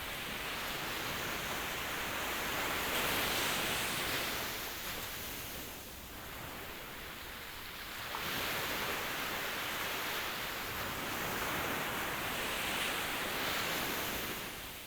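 Ocean waves washing in, a rushing hiss that swells twice: over the first six seconds and again from about eight seconds, easing off near the end.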